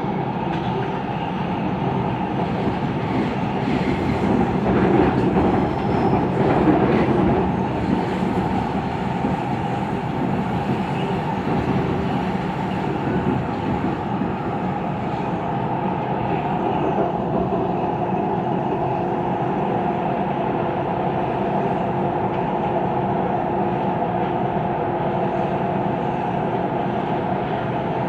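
Siemens Inspiro metro train heard from inside the car while running along the track: a steady, weird rolling noise with a few held tones over it, a little louder a few seconds in.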